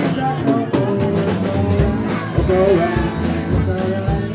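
Live rock-and-roll band with electric guitars, bass and a drum kit playing an instrumental passage. A lead guitar line with bent notes runs over an even cymbal beat.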